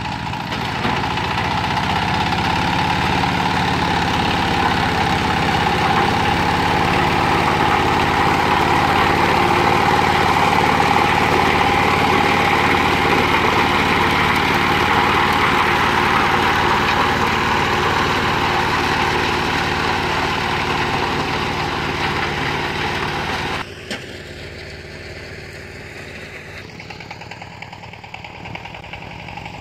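Zubr 15 hp mini tractor's engine running steadily under load while its rear rotary tiller works the soil. The sound drops abruptly to a quieter level a little over three-quarters of the way through.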